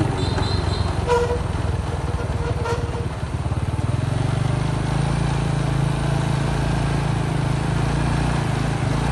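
Engine of a moving vehicle running steadily as it drives down the street: a low, pulsing drone that stays even.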